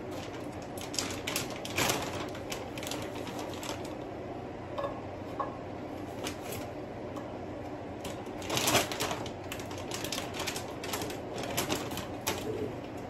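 Chicken strips cooking in a grill pan: irregular clicking and crackling, with louder bursts about two seconds in and again near nine seconds in.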